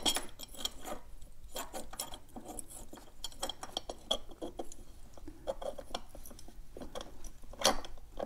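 Light metallic clicks and clinks as a CNC-machined metal pedal is handled and fitted onto an electric unicycle's pedal hanger, its rod and washer tapping against the hanger. The clicks come irregularly, with one louder clink a little before the end.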